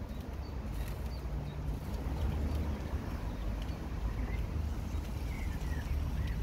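Outdoor garden ambience: a steady low rumble with a few faint bird chirps, most of them in the second half.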